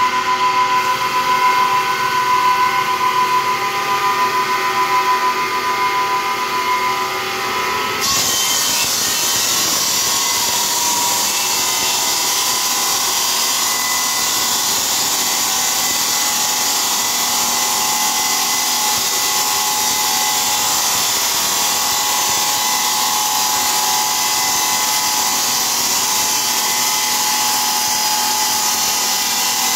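Belt-driven, water-cooled circular stone saw running: a steady whine with several held tones, then about eight seconds in it changes abruptly to a steady, harsh grinding hiss as the blade cuts through a stone tile slab.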